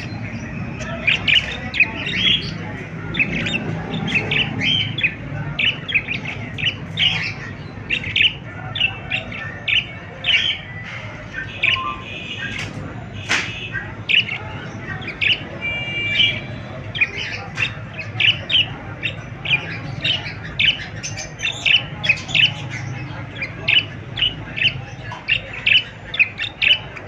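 Parrots chirping and squawking continuously, many short calls a second overlapping, over a steady low background hum.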